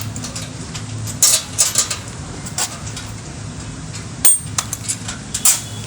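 Several sharp metal knocks and clinks at irregular intervals, from tools and parts being handled while a farm machine is assembled, over a steady low hum.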